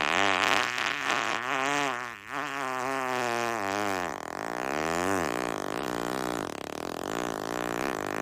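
A single long, drawn-out fart whose pitch wavers up and down as it goes on without a break, faltering briefly about two seconds in.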